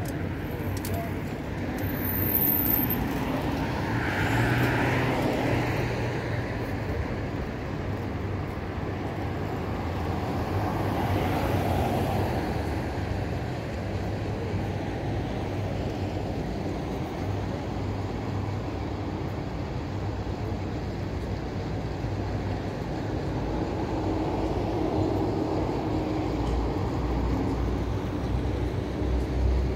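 City street traffic: a steady hum of traffic with cars passing by on the road, swelling and fading a few times.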